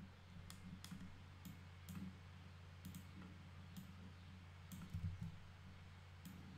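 Computer mouse buttons clicking: scattered single and double clicks, about eight or nine in all, faint over a steady low hum.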